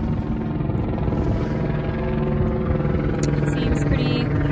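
Helicopter flying overhead: a steady rotor beat over the engine's drone.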